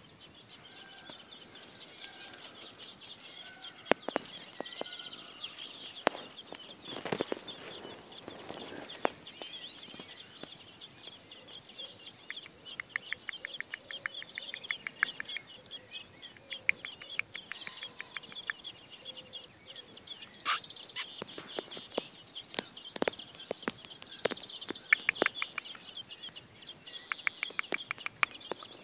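Mistle thrush nestlings begging in the nest: a steady high-pitched chorus of calls, broken by short runs of fast ticking and a few sharp knocks.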